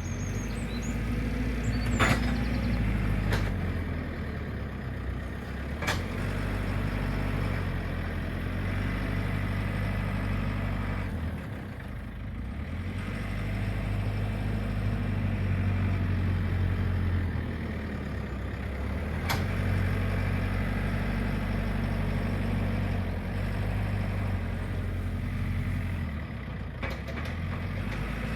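JCB 4CX backhoe loader's diesel engine running under working load, its note rising and falling as the front bucket pushes and levels stone. A few sharp knocks come through, about two, three, six and nineteen seconds in.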